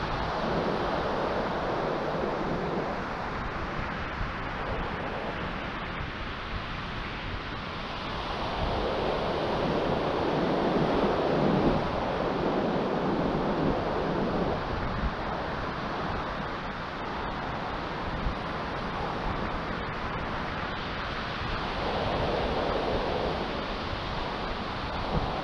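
Small sea waves breaking and washing up a sandy shore, the surf swelling and fading three times, with some wind noise on the microphone.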